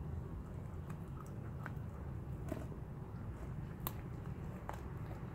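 Lycan Shepherd puppies chewing and gnawing a frozen raw tilapia, with scattered crisp crunches and clicks of teeth on fish and bone, the sharpest just before four seconds in, over a steady low background rumble.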